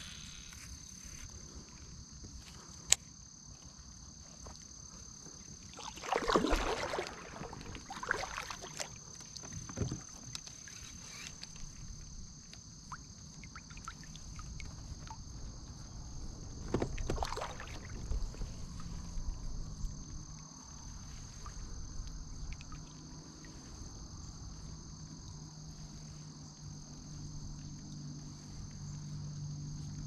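A steady high-pitched chorus of insects, with a couple of louder handling noises from the kayak about 6 and 17 seconds in.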